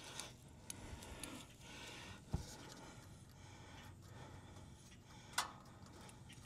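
Faint handling noise from hands and tools working under a car, with two short sharp clicks about three seconds apart.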